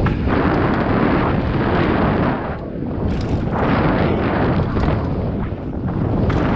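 Wind buffeting a mountain biker's action-camera microphone at speed, mixed with the rumble of tyres rolling over hard-packed dirt trail. It eases briefly twice, about two and a half and five and a half seconds in.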